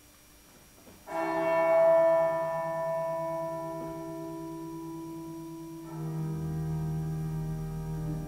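Slow instrumental music of held chords: a chord comes in suddenly about a second in and slowly fades, and a new chord with deep bass notes enters near six seconds.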